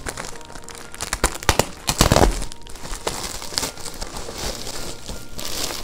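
Plastic courier mailer bag crinkling and tearing as it is cut open with a small knife and handled, with irregular crackles and a loudest rustling burst about two seconds in.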